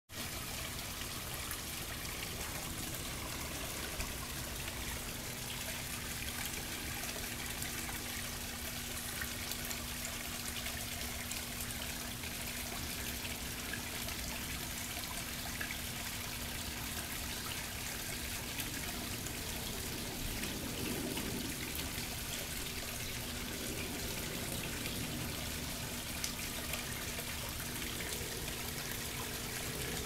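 Small garden pond waterfall trickling and splashing steadily over rocks into the pond, with a faint steady low hum underneath.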